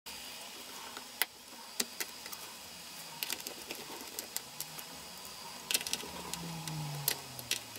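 Faint, irregular small clicks and ticks of a small screwdriver working the screw on a Lenovo ThinkPad T440's metal display-hinge bracket, coming singly and in short clusters.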